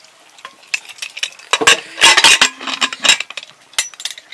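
Metal cooking pots and utensils clattering and clinking in a run of quick knocks, the loudest clatter around the middle.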